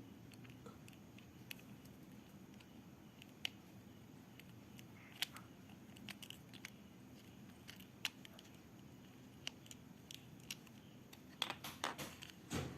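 Faint, scattered clicks and taps of a handheld two-way radio and its small plastic parts being handled and fitted together, with a quick run of clicks near the end.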